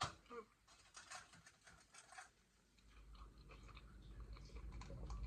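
Faint chewing of chicken nuggets: soft, scattered crunchy clicks for the first couple of seconds. From about three seconds in, a low hum grows steadily louder.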